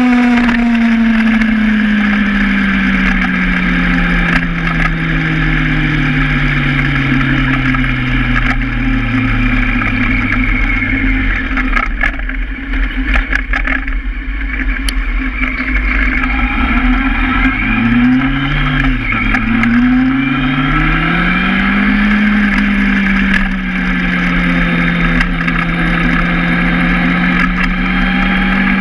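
Honda Hornet inline-four motorcycle engine. The note falls steadily as the bike rolls off to a stop, sits low at idle for a few seconds, then climbs through two gears with a shift between and settles into a steady cruise.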